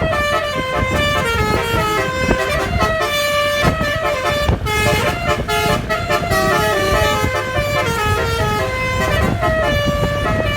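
Indonesian bus 'basuri' musical air horn playing a tune of quickly changing notes, over a low rumble.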